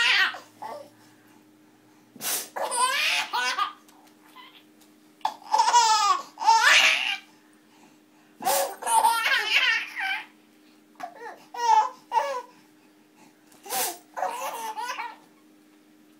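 Infant laughing in about six separate bouts with short pauses between them. Short sharp noises come just before three of the bouts.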